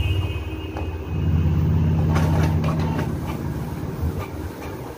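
Canon PIXMA G2010 inkjet printer running a test print: a motor drone begins about a second in, with a run of clicks and knocks from the paper feed and print-head carriage in the middle.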